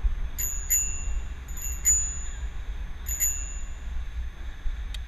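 Bicycle bell rung three times, each a quick double ding with a short ring-out. Wind rumbles on the helmet microphone underneath.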